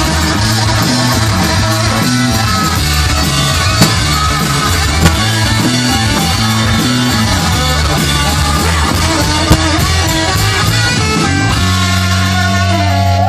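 Live rock band playing an instrumental passage: electric guitar with bass and drums, with a few sharp drum accents. About twelve seconds in the band settles onto one held, ringing chord.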